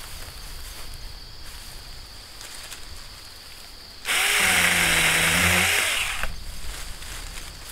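Saker 4-inch mini cordless electric chainsaw starting about four seconds in and running for about two seconds as it cuts through a thin poplar sapling at its base, the motor pitch sagging briefly under load. Crickets or other insects keep up a steady high trill underneath.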